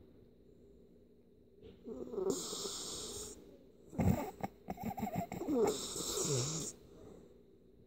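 Miniature pinscher snoring and wheezing through its nose, close to the microphone: two long snoring breaths, one about two seconds in and a louder, crackling one about four seconds in.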